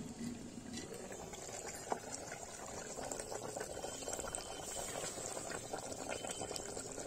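Chicken curry boiling hard in an earthen handi, a steady bubbling with many small pops. One sharp knock about two seconds in.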